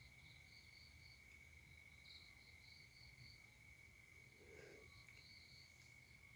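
Near silence with faint insect chirping: short high-pitched chirps repeating over a steady high tone.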